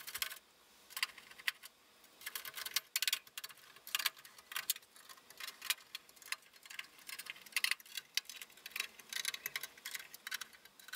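Hand screwdriver turning screws into the perforated metal top cover of a Heathkit SB200 amplifier: a run of irregular small metallic clicks and ticks as the screws are driven home.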